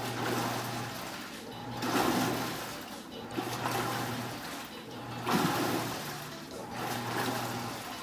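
RCA 2.0 portable washing machine running its wash cycle: the motor hums in short spells, stopping and starting again about every second and a half, with water swishing in the tub each time.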